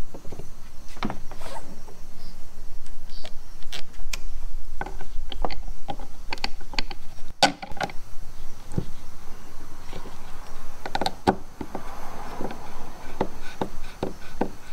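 Irregular clicks and taps of a hand Phillips screwdriver starting screws into a kayak motor mounting plate, over a low steady background rumble.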